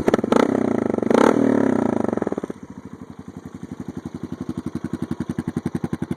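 2012 Honda Foreman 500 ATV's single-cylinder engine, breathing through a Big Gun Eco aftermarket exhaust, revved hard twice. It drops back to a loping idle about two and a half seconds in.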